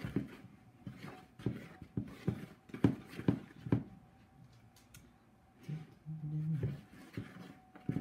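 A long plastic spoon stirring thick quick-bread batter in a plastic bowl, knocking and scraping against the bowl about twice a second for the first four seconds, with another knock near the end. A little past halfway comes a short low moan lasting about a second.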